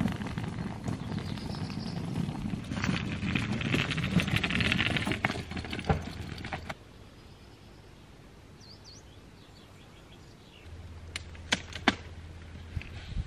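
A wheeled suitcase rolled over gravel, making a rattling crunch for about the first seven seconds. Near the end come a few sharp clicks as a small car's hatchback is unlatched and lifted.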